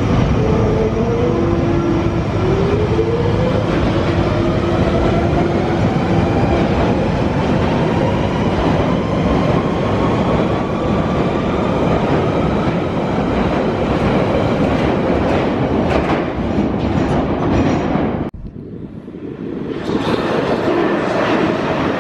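London Underground 1992 Stock tube train accelerating away from a deep-level platform: heavy rumble and wheel clatter, with a motor whine rising steadily in pitch as it picks up speed. About 18 s in, the sound cuts off abruptly, and a quieter rumble of another train approaching through the tunnel builds up.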